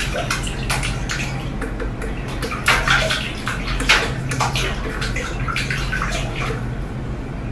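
Water splashing and sloshing in a stainless steel kitchen sink as a cat paws and scoops at it, in irregular splashes with louder ones about three and four seconds in.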